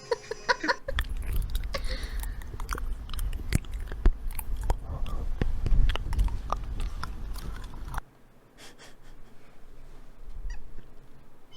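A cat chewing and crunching, with many quick sharp clicks over a low rumble. About 8 seconds in it cuts off suddenly to a quieter stretch with fewer, fainter clicks.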